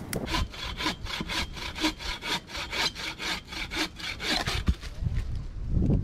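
Hand saw cutting through a wooden log in quick, even back-and-forth strokes, about four a second, stopping shortly before the end.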